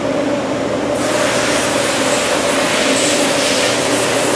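Steady hum of factory machinery with a few constant tones, and a hiss that grows louder about a second in.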